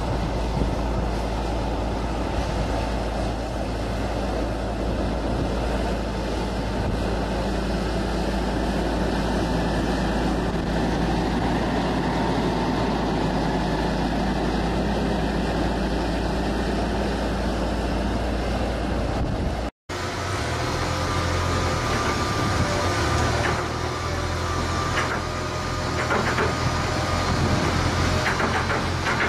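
Manitou telehandler's diesel engine running steadily under work. It breaks off for an instant about two-thirds of the way through, then goes on with a heavier hum and scattered clicks and rattles.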